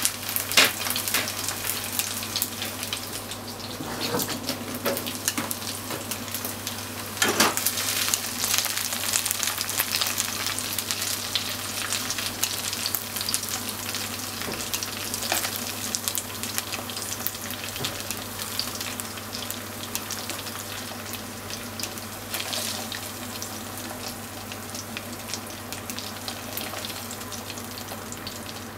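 Chicken pieces sizzling and crackling in hot oil in a frying pan, with a few sharper knocks as pieces are lifted out of the pan, over a steady low hum.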